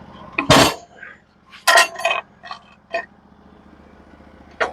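A heavy metal knock about half a second in, then a run of short, sharp metallic clinks and clanks, as of steel tools or sawmill hardware being handled.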